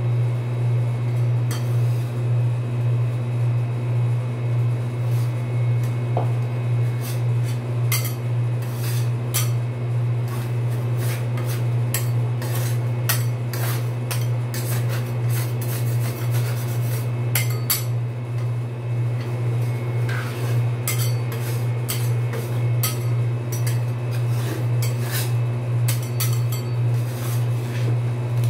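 Steel spatulas tapping, chopping and scraping on a steel rolled-ice-cream cold plate, a rapid run of metal clicks that grows busier from about eight seconds in. A steady low hum runs underneath.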